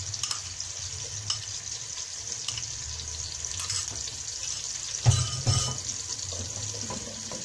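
Chopped onion and smashed garlic sizzling in oil in a stainless steel pot, a steady hiss. A wooden spoon stirs the pan, with a brief clatter about five seconds in.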